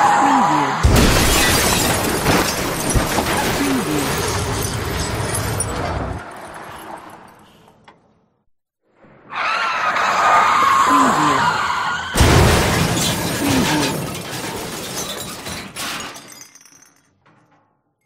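Two car-crash sound effects. Each opens with tyres screeching under hard braking, then a sudden heavy impact and a long spell of crunching metal and breaking glass that trails off over several seconds. The first impact comes about a second in, the second about twelve seconds in, with a short silence between them.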